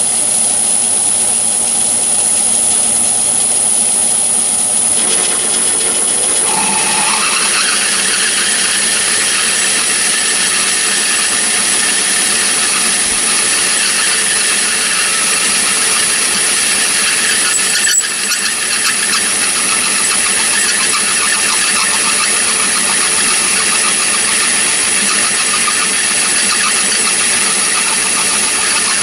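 Myford ML7 lathe running with a boring tool cutting inside the bore of a steel barrel weight: a steady mechanical noise with a constant high whine. About six and a half seconds in, a squealing tone rises and the cutting noise grows harsher. There is a single sharp click a little past halfway.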